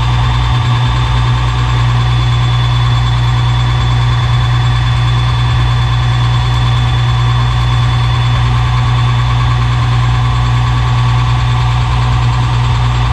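Metal lathe running steadily: a loud low hum with a faint high whine above it.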